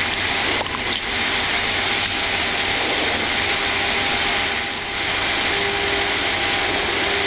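Flight-deck noise of a Boeing 747-8F as its GEnx engines 3 and 4 spin up during start: a steady airy hum. A couple of soft clicks come about a second in, and a steady low tone joins about five seconds in.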